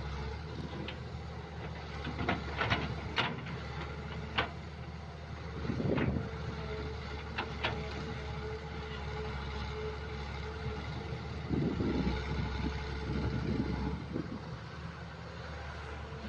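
Kobelco SK07 crawler excavator's diesel engine running steadily while it digs mud. Several sharp knocks come in the first half, and a steady whine runs through the middle.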